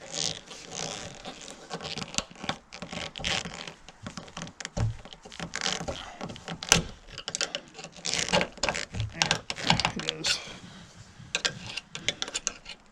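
Metal flathead screwdriver scraping and clicking against a liftgate gas strut's end fitting, its tip being worked into the fitting's small slot to pry it loose. Irregular sharp clicks and scrapes.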